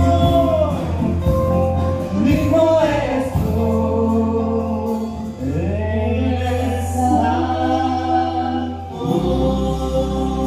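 Live worship band playing a song through PA speakers, with several voices singing held notes together over a steady bass line.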